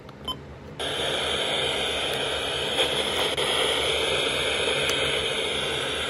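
Midland weather alert radio's speaker giving a steady static hiss, starting about a second in, while it sits on FM presets with no station coming through. Just before the hiss starts there is a brief quiet gap with one short beep.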